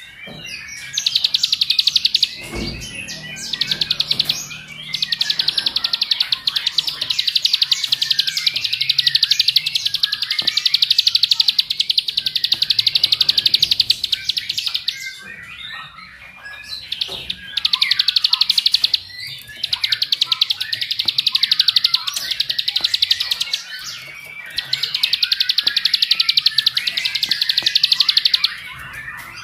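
Plain prinia (ciblek sawah) singing its rapid, high, buzzing trill in long unbroken bouts of several seconds, separated by short spells of scattered twittering chirps. This is the continuous 'ngebren' song used as a lure to set other prinias singing. A single low thump comes a little under 3 s in.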